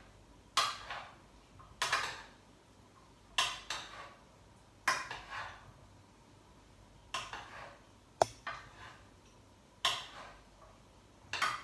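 Spoon clinking and scraping against a pot while bean salad is stirred: about nine short strokes at irregular intervals of a second or so.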